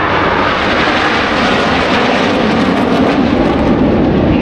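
A formation of KAI T-50 Golden Eagle jet trainers passing close overhead: a loud, continuous jet engine roar that drops lower in pitch as the jets go by and move away.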